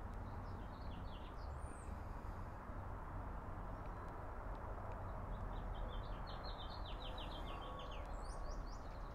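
Small birds chirping, with a few calls early on and a quick run of chirps from about six seconds in, over a steady low background rumble.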